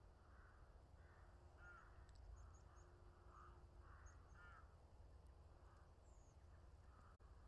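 Near silence: faint distant birds calling, a run of repeated calls with a few tiny high chirps, over a low steady rumble.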